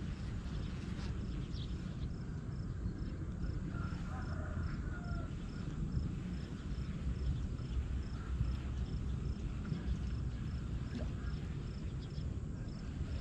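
An insect chirping high and evenly, a few times a second, over a steady low rumble, with a few faint bird chirps about four seconds in.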